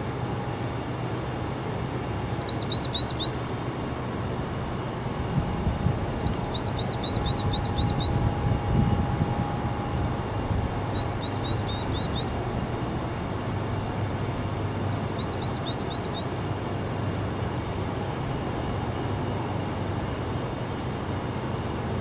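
Black-capped chickadee giving its chick-a-dee call four times, about every four seconds: a high opening note followed by a quick run of lower dee notes. A steady low rumble runs underneath.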